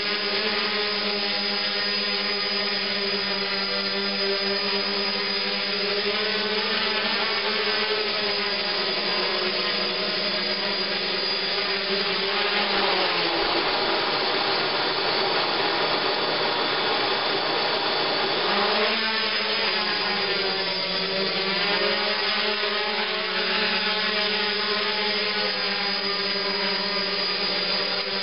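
A small quadcopter's four electric motors and propellers whine steadily. The pitch drops about twelve seconds in and climbs back about six seconds later.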